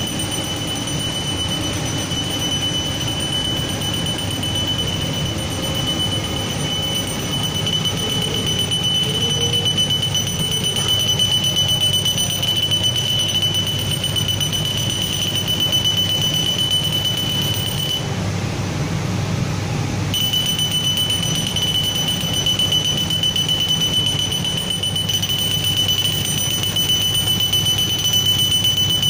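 Galvo laser machine running while it perforates shoe-upper pieces: a steady high-pitched whine over a constant low machine and fan rumble. The whine drops out for about two seconds a little past the middle, then comes back.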